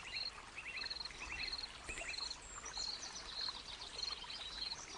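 Faint recorded nature ambience: small birds chirping, with a short high chirp repeating about every half second, over a soft hiss.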